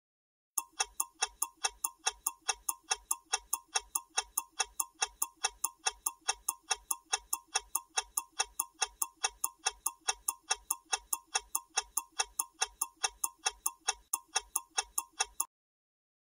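Clock-ticking sound effect marking a quiz countdown timer: a rapid, perfectly even ticking that starts about half a second in and cuts off suddenly about a second before the end, as the timer reaches zero.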